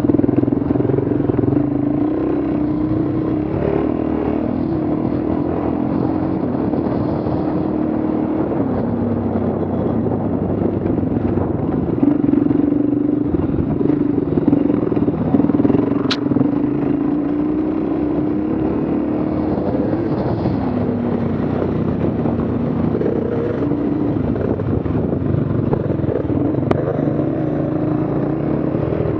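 Dual-sport motorcycle engine running steadily, its pitch rising and falling with the throttle. A single sharp click about sixteen seconds in.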